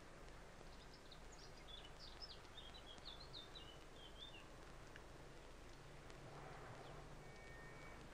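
Faint birdsong: a run of quick high chirps and twitters in the first half, over the steady low hum and hiss of an old film soundtrack.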